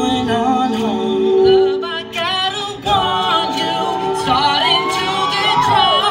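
Men's a cappella group singing live: held chord harmonies of many voices under a lead voice bending through sliding runs, with short percussive hits.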